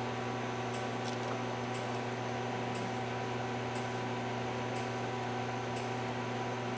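A/C refrigerant recovery machine running with a steady hum while it evacuates the system's refrigerant, with a faint high tick about once a second.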